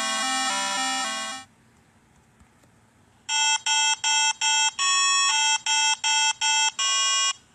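Synthesized electronic tones. A fast repeating pattern of short notes stops about a second and a half in. After a pause comes a run of about a dozen short ringtone-like beeps, mostly on one pitch with one longer, different note in the middle.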